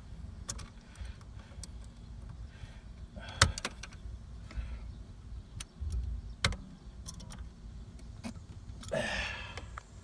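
Scattered clicks and knocks of a flathead screwdriver and the metal horn spring and clip being forced down onto a steering wheel's horn hub, the loudest knock about three and a half seconds in and another about six and a half seconds in.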